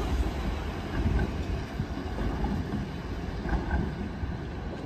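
Modern low-floor articulated tram rolling away over the street track, its running rumble slowly fading as it draws off.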